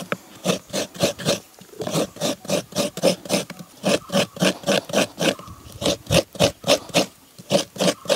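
Half a coconut scraped by hand against the serrated metal blade of a traditional coconut grater: quick, even rasping strokes, about four a second, with a brief pause about two seconds in.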